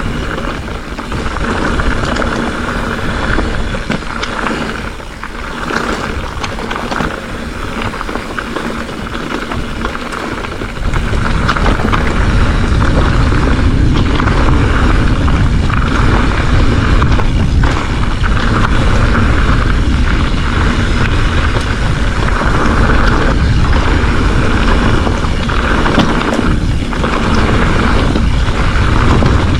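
Hardtail mountain bike running down rough singletrack, heard from a bike- or rider-mounted action camera. Wind buffets the microphone with a low rumble that grows sharply louder about a third of the way in as speed builds, over tyre noise and frequent knocks and rattles from the rigid frame hitting bumps.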